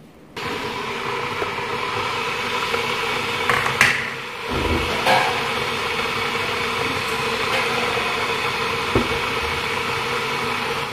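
Steady machine noise, a hum under a rushing whir, with a few short knocks and clatters around the middle. It cuts in and out abruptly.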